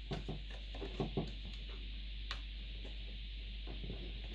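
Hands working the plastic case and battery and hard-drive release button of a Compaq LTE Elite 475CXL laptop: a few light clicks and knocks, then one sharper click a little after two seconds in, over a steady low hum. The release does not work.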